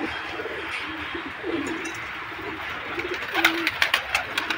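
Domestic pigeons cooing over and over in low, rolling calls. A quick run of sharp clicks comes about three and a half seconds in.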